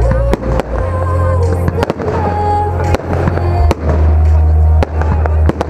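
Aerial fireworks bursting: a series of sharp bangs, spaced irregularly, over loud music with a deep bass line.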